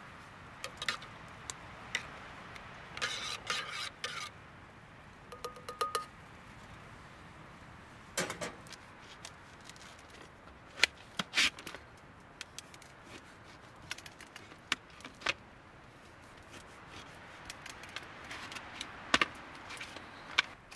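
A spoon stirring and clinking in a metal camp mug, with a few short ringing clinks in the first seconds, then a knife cutting slices off a loaf of dark bread on a plate: short scraping cuts through the crust and scattered sharp clicks.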